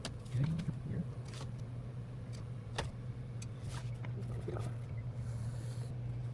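A steady low hum with a few light clicks and knocks scattered through it.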